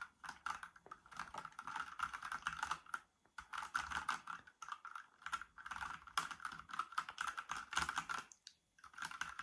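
Redragon K565 mechanical keyboard with linear red switches being typed on quickly: rapid runs of key clicks and clatter, broken by short pauses about three seconds in and again near the end.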